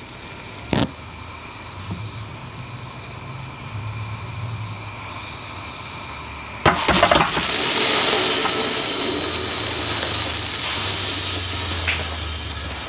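RUCAS HD denatured-alcohol stove burning with its side jets lit, a steady low rumble. About seven seconds in, the titanium kettle is set down on the stove with a short metal clatter, followed by a hiss that slowly fades.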